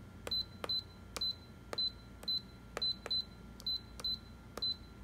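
Stylus tapping letters on the touchscreen keyboard of a Canon imageRUNNER Advanced C5240 copier, each tap a click followed by the panel's short high key beep, about ten in steady succession.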